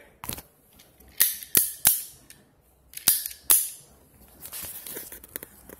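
Metal ratchet buckle of a ratchet strap being handled and set down: about six sharp, irregularly spaced clacks, followed by softer ticks and rustling of the strap near the end.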